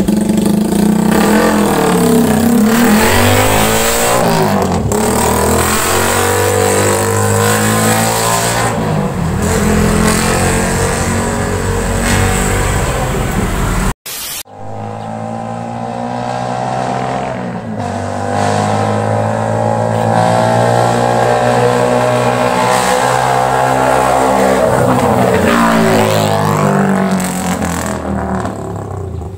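Motorcycle with an open-pipe (Charama) exhaust running loud and accelerating, its engine pitch climbing and dropping several times as it revs up and shifts. The sound breaks off for a moment about halfway and then picks up again.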